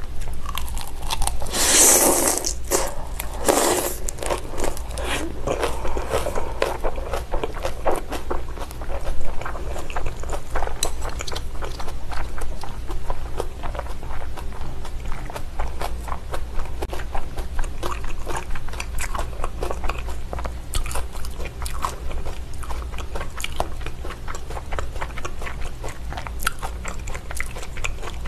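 Close-miked chewing of raw salmon sashimi wrapped in crisp salad greens. The crunching of the leaves is loudest in the first few seconds, then settles into steady, smaller wet chewing sounds.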